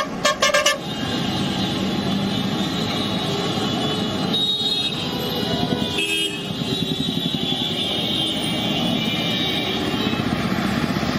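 Busy road traffic: engines running with car and motorcycle horns honking on and off over the din.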